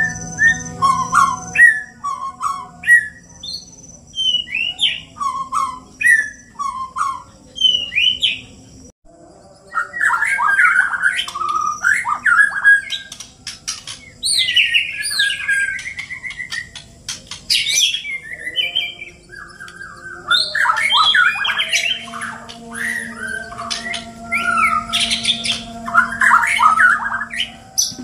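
Two caged white-rumped shamas singing against each other. Short, separate whistled phrases for the first nine seconds, then a dense run of fast song with rising and falling whistles.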